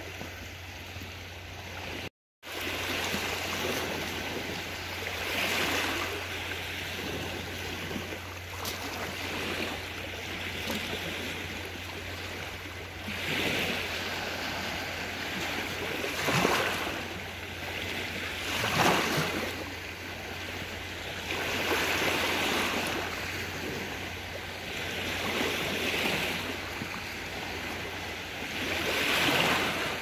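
Small sea waves washing against shoreline rocks, the wash swelling and fading every few seconds, over a low steady hum. The sound cuts out briefly about two seconds in.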